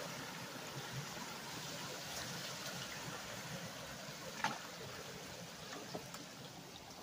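Steady hiss of water and light rain, with one sharp knock about four and a half seconds in as a long-handled hand tool works at hard-packed beaver debris in a clogged culvert; a couple of fainter knocks follow.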